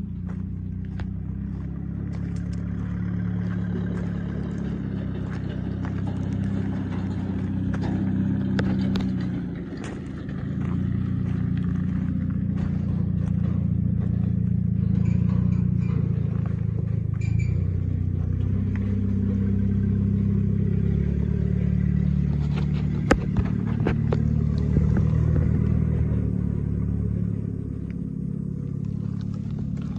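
International WorkStar 7300 truck's diesel engine idling steadily, with scattered clicks and scrapes, one sharp click a little past two-thirds through.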